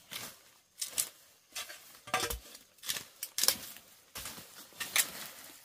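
A machete chopping into forest soil, leaf litter and roots, digging at the base of a wild yam to reach the tuber. It strikes again and again in irregular strokes, about two a second.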